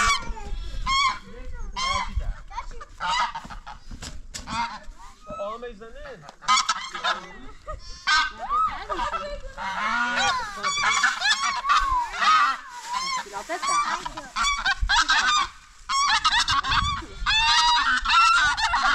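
Domestic geese honking, many short calls overlapping, growing into a dense chorus in the second half with a brief lull just before the end.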